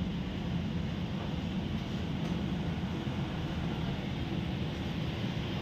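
Steady low rumble of shop background noise, with no distinct sounds standing out.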